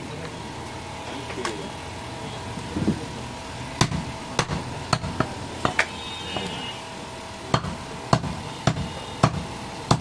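Butcher's cleaver chopping goat meat and rib bone on a wooden log chopping block: a series of sharp chops, about one to two a second, starting around four seconds in.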